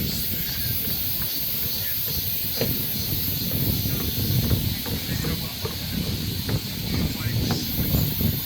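Wind gusting across the microphone in an uneven low rumble, over a steady high hiss of the forest, with no clear bird calls.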